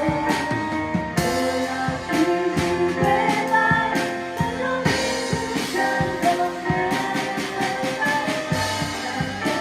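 Live worship band music with singing over guitar and drums, keeping a steady beat.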